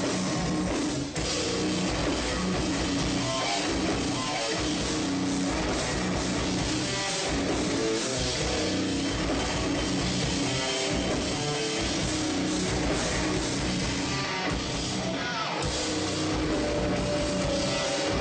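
Metalcore band playing at full volume: heavily distorted electric guitars and a drum kit pounding steadily, with a momentary drop about a second in.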